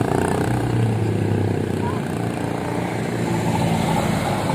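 Road traffic passing close: a motorcycle and cars go by with their engines running, and a light truck's engine grows louder near the end as it passes.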